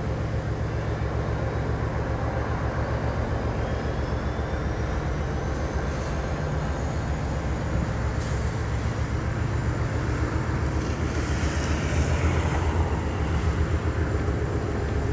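Several BNSF diesel locomotives pulling a train out at low speed: a steady low diesel engine rumble, with a faint high whine rising in pitch around the middle.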